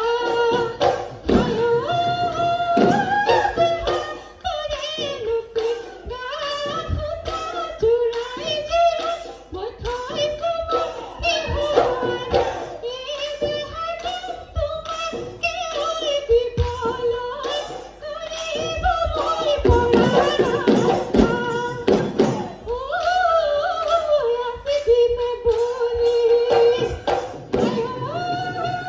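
Assamese Bihu music performed live: voices singing a Bihu song with high, ornamented calls over dhol drums beaten in a quick, steady rhythm.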